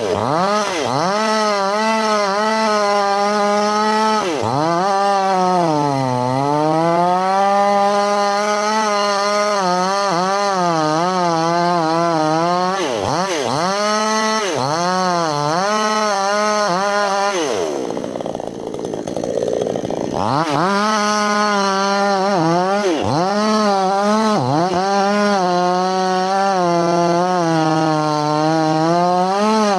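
Two-stroke petrol chainsaw cutting into a thick tree trunk at full throttle, its engine pitch dipping again and again as the chain bogs in the wood, then picking back up. About two-thirds of the way through the throttle is let off for a couple of seconds, then opened up again.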